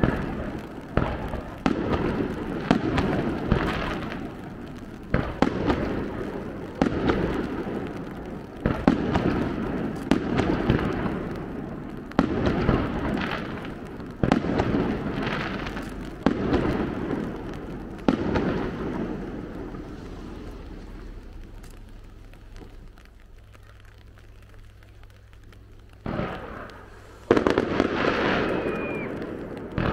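Aerial fireworks shells bursting one after another, each bang followed by a long rolling echo. The bangs thin out and fade to a lull in the middle, then loud bursts start again near the end.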